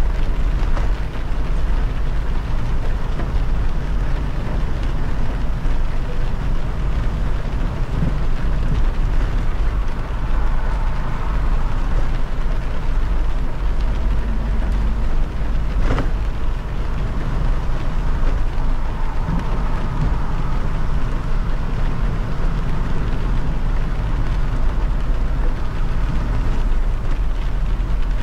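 Car driving on a rain-wet expressway: a steady rumble of tyres and road noise with the hiss of rain, and a single sharp click about halfway through.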